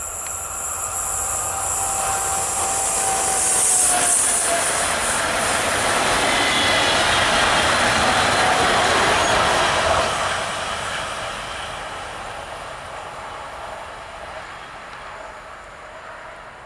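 Two coupled Newag Impuls electric multiple units pass at speed. The wheel and rail noise builds as they approach, stays loud for several seconds with a faint whine that dips slightly in pitch, then fades as they move away.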